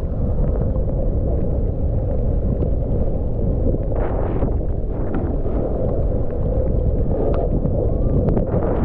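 Wind buffeting the microphone of a skier's camera on a fast downhill run, with skis sliding over the snow; brief louder hissing scrapes about four seconds in and again near the end.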